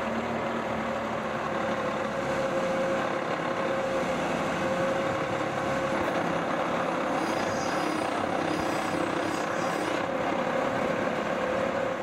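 Case IH tractor's diesel engine running steadily as the tractor reverses slowly up to a trailed sprayer's drawbar to hitch it, with a steady hum running through it.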